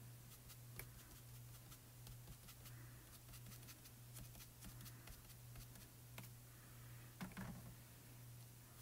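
Near silence: the soft scuffing and dabbing of a pan pastel sponge applicator worked over card stock through a stencil, with scattered faint clicks, a slightly louder scuff about seven seconds in, and a low steady hum underneath.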